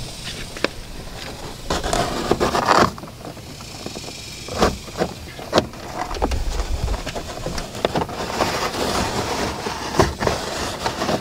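Hands working a dash cam cable into a car's headliner edge along the door opening, with the rubber door weather strip pulled loose: irregular clicks, taps and rustles of cable, rubber and trim against a steady outdoor background.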